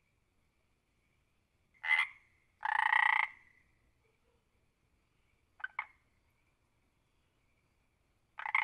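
Frog croaking in separate calls: a short croak about two seconds in, a longer one right after, a quick double croak near six seconds, and another long croak starting near the end.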